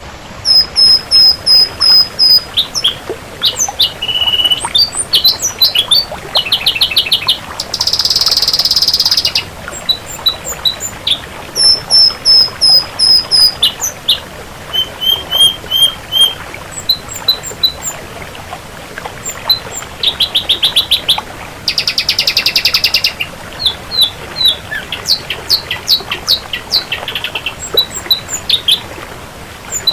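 Ashy drongo singing a varied, quickly changing song of runs of repeated clear whistled notes and rapid trills, broken twice by a harsh buzzy burst of over a second: about eight seconds in and again about twenty-two seconds in.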